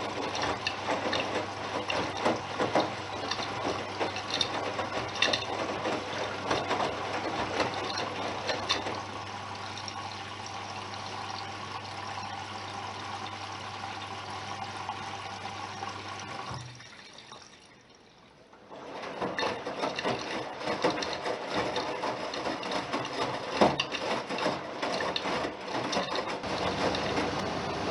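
Bosch Serie 6 WAQ28477EX front-loading washing machine mid-cycle: water sloshing and splashing in the turning drum with scattered knocks, over a steady low hum. Past the middle the hum and the drum stop together, and after a couple of seconds of near quiet the drum turns again with splashing and knocks.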